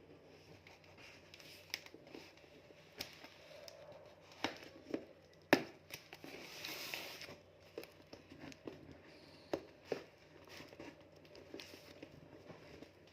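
Parcel packaging being handled and opened: crinkling and tearing with scattered sharp clicks and taps, the loudest about five and a half seconds in.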